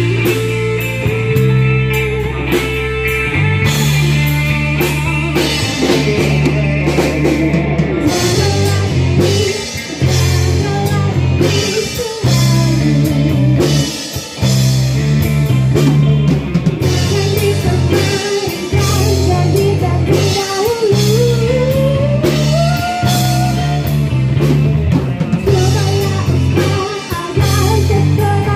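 A live band playing through amplifiers: a woman singing into a microphone over electric guitar, bass guitar and a drum kit keeping a steady beat.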